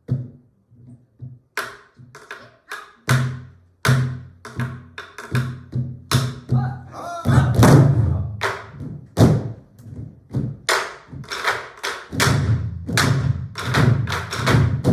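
An ensemble of Korean soribuk (pansori barrel drums) playing together. Deep drumhead thuds mix with sharp clicks of the sticks on the wooden shells. The strokes are sparse at first and grow into a dense, steady rhythm from about halfway through.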